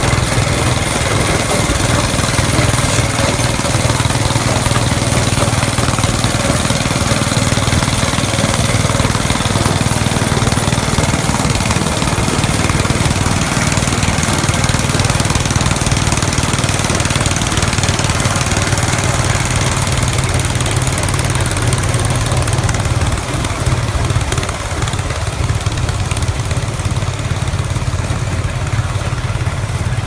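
A Ferguson 35 petrol/TVO tractor and the McCormick baler's own small petrol engine running together, a steady, loud engine drone as the baler picks up and works straw. The sound eases slightly in level near the end.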